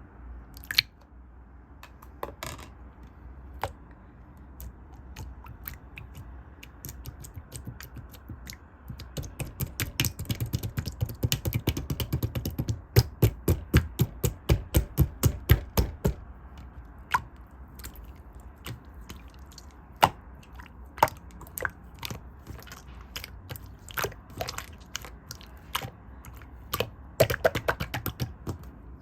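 Someone eating a soft ripe persimmon (hongsi) close to the microphone: wet mouth clicks and smacks. They come fast and loud for several seconds in the middle, sparser before and after.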